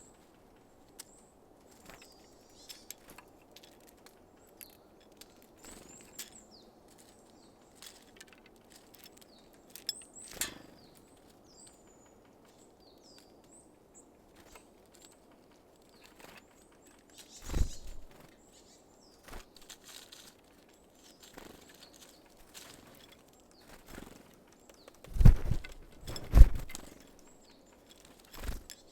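Small wild birds at a feeder: scattered short, high chirps and calls, with light taps and clicks of birds landing and pecking at seeds. Louder thumps come once a little past the middle and twice near the end.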